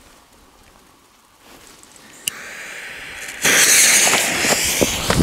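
Fuse of a 36-shot, 45 mm firework cake (Klasek Barracuda) catching and burning: a sharp click about two seconds in, then a hiss that turns into a loud, sparking hiss about three and a half seconds in. A dull thump comes at the very end.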